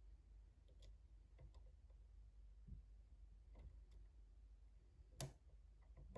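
Faint, scattered clicks of a hook pick working the pins inside a pin-tumbler lock, with one sharper click about five seconds in.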